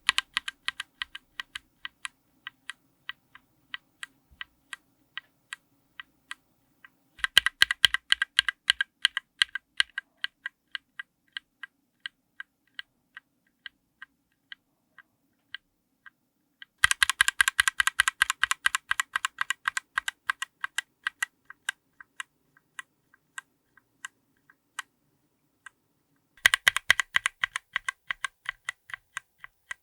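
Linear mechanical keyboard switches under a GMK keycap, clacking in quick dense runs of keystrokes three times. Between the runs come slower, quieter single presses.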